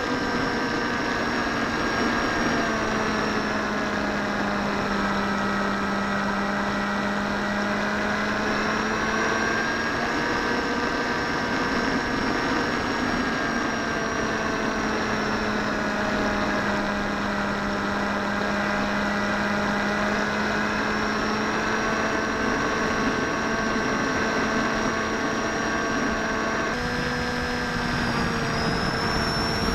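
Electric motor and propeller of a Bixler v1.1 foam RC plane in flight, heard from its onboard camera with wind rushing over the microphone: a steady hum whose pitch drifts slowly down and back up as throttle and airspeed change, stepping up slightly near the end.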